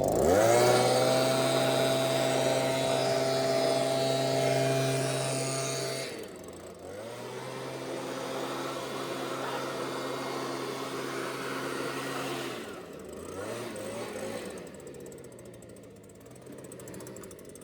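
Gas-powered blower's small engine revving up sharply to full throttle and holding for about six seconds, dropping back briefly, then throttling up again for about five seconds before falling back to idle and fading near the end.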